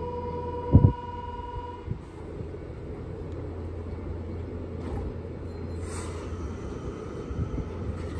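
Nankai 6300 series electric train standing at the platform with a steady low rumble, ready to depart. A steady electronic tone sounds until about two seconds in, with a heavy thud just under a second in, and a short hiss of air about six seconds in, typical of brakes releasing before the train pulls away.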